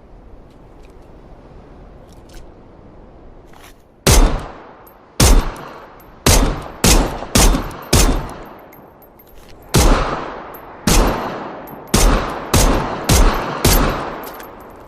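Glock pistol firing about a dozen shots, starting about four seconds in after faint hiss and small clicks. Some shots come singly and some in quick runs about half a second apart, each with an echoing tail.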